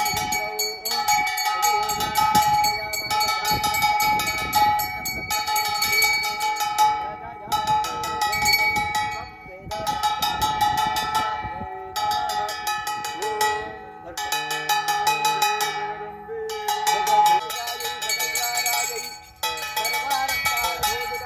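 Metal bells ringing with rapid continuous strikes, several steady ringing tones layered together, broken by brief lulls every couple of seconds.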